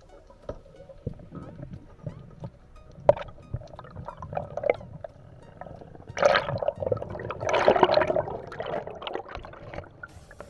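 Underwater sound of a spearfisher's dive: water gurgling and sloshing around the camera, with scattered clicks, and a louder stretch of bubbling noise from about six seconds in.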